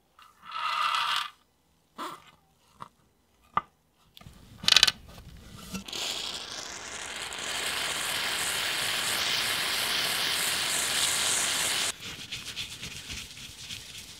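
Small steel bearing balls clicking as they are dropped onto a work surface, the loudest click about five seconds in. Then a long, steady rubbing as the balls are rolled and wiped inside a paper shop towel to clean the rust off them. The rubbing eases off and turns more broken near the end.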